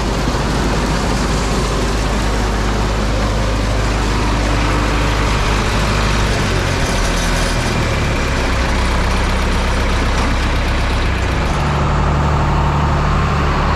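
Heavy farm-vehicle engine running steadily. Its pitch steps to a new engine speed about six and a half seconds in and again near the end.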